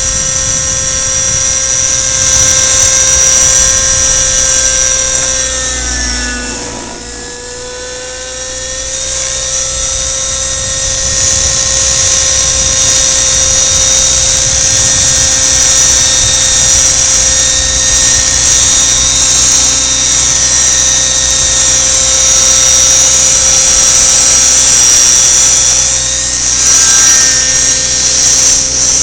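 Radio-controlled model helicopter flying aerobatics, its engine and rotor making a loud, steady high-pitched whine. About six seconds in the pitch sags and the sound drops for a couple of seconds, then it climbs back to full whine.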